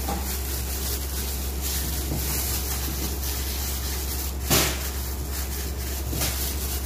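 Disposable plastic gloves rustling and rubbing as hands roll a piece of bread dough into a ball on a plastic-covered table, with one sharper knock about four and a half seconds in. A steady low hum runs underneath.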